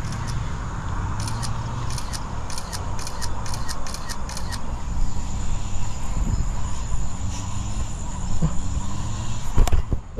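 Steady low rumble of wind buffeting an outdoor microphone, with a quick run of faint high clicks about a second in that lasts some three seconds, and a couple of handling knocks near the end.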